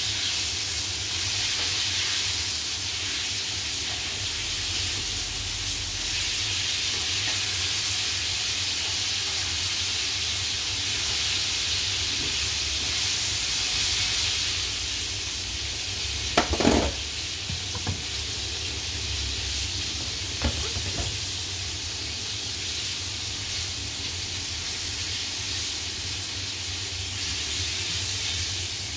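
A steady hiss, with a few sharp knocks about sixteen and twenty seconds in.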